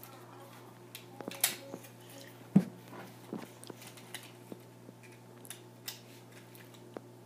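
Scattered small clicks and ticks of a toy train locomotive's parts being handled while a loose screw is fitted back in, with one sharper knock about two and a half seconds in.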